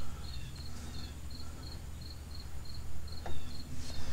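Cricket chirping steadily, about three high chirps a second, over a steady low hum.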